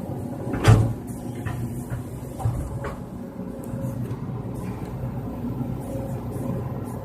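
Excavator engine running steadily while digging, with a loud knock about a second in and two lighter knocks a couple of seconds later.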